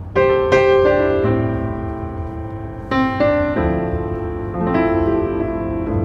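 Piano music: notes and chords struck at uneven intervals, each left to ring and fade.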